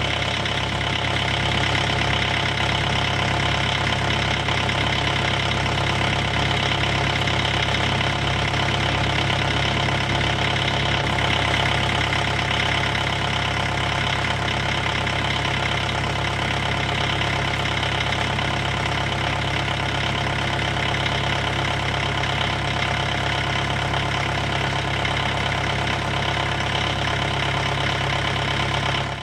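Car engine running steadily with an even, unchanging pitch and no revving; it fades out quickly at the very end.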